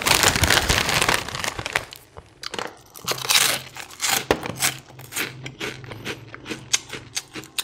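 A plastic-foil bag of Poca squid-flavoured puffed snack crinkling as a hand digs into it, then crisp crunching and chewing of the snack pieces in many short, sharp bites. A low steady hum runs under the chewing from about three seconds in.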